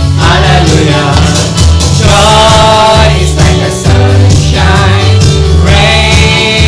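Praise and worship song: voices singing held notes over a band with a steady bass line.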